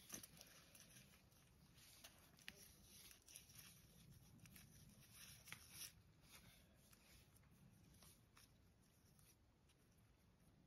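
Near silence with faint scattered rustles and small ticks from hands tying plastic flagging ribbon at a survey pin.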